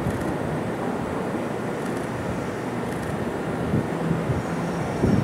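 Vintage 1917 Lo-V subway train running on an elevated track as it approaches, a steady noise of the train in motion.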